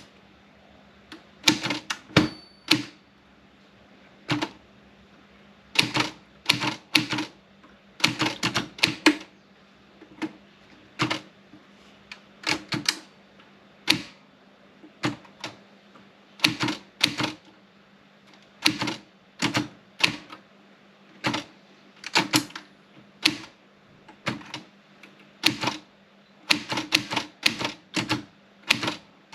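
Olympia Splendid 33 manual portable typewriter being typed on: sharp clacks of the typebars striking the platen, in uneven bursts of a few keystrokes with short pauses between.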